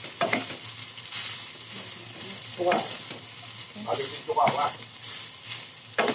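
Wooden spatula stirring and scraping fried rice around a nonstick wok, a few separate scrapes over a steady frying sizzle.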